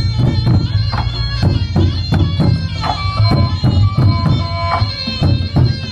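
Thai drum ensemble playing: tall barrel drums struck in a quick, driving rhythm, with a melody of held notes over it.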